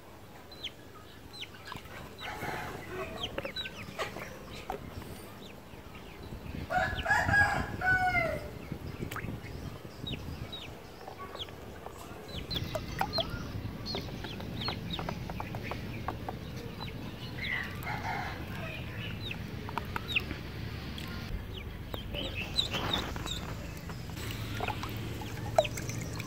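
Ducklings peeping: many short, high peeps scattered throughout, with two louder, longer fowl calls, one about seven seconds in and one after about eighteen seconds.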